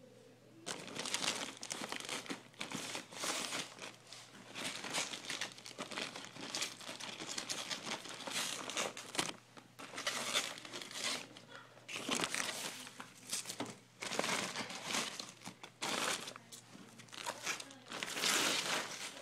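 Plastic wrapping crinkling and rustling in irregular handfuls as it is pulled off a flat-screen TV, starting about a second in.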